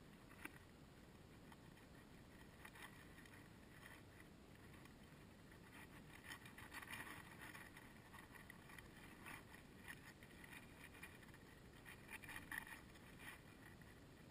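Faint crackling and rustling of dry hay as two rabbits eat and nose through it close to the microphone: short crisp clusters, busiest about six to eight seconds in and again around twelve to thirteen seconds.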